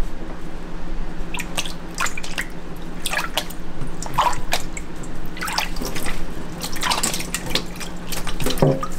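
Water sloshing, splashing and dripping in a basin as a gloved hand moves around under the surface, in irregular small splashes and drips over a steady low hum.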